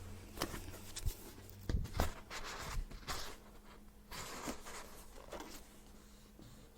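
A paperback book being handled and opened, its pages and cover rustling and flicking, with a few light taps and knocks in the first couple of seconds.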